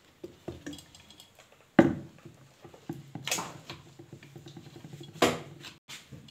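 Handling noises at a workbench: a few sharp knocks and clinks with small clicks between, the loudest about two seconds in and others near three and five seconds, as the ceiling fan's supply wires are handled.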